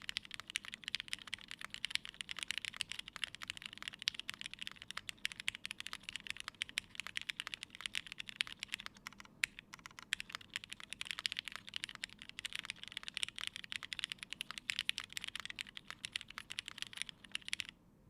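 Fast, continuous typing on a GHS.Rar custom mechanical keyboard with lubed Cherry MX Hyperglide Black linear switches, a half polycarbonate plate and GMK keycaps: a dense stream of key clacks. There is a brief lull about nine seconds in, and the typing stops abruptly shortly before the end.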